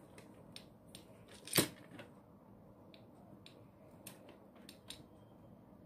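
Scattered light clicks of clear faceted plastic beads knocking together and against a metal bowl as fingers pick them out and handle the beaded band, with one louder knock about a second and a half in.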